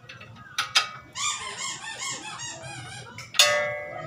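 Two light knocks, then about two seconds of rapid squeaking. A sharp metal clang that rings briefly follows near the end and is the loudest sound, typical of a steel tool striking front suspension parts.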